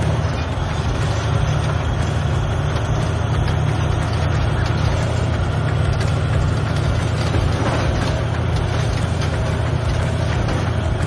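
Large crawler bulldozer's diesel engine running steadily under load, a deep, even drone with noisy machine clatter over it.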